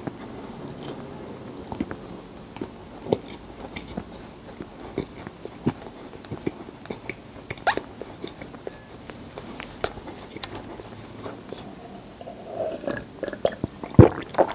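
Close-miked chewing of a mouthful of sesame-topped honey bread (kkul-ppang): small wet clicks and light crunches of the seeds. Near the end, a sharp louder click as he starts drinking milk from a cup.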